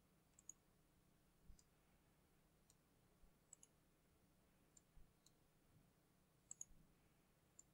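Faint clicks of a computer mouse over near silence, about a dozen scattered irregularly, several coming in quick pairs.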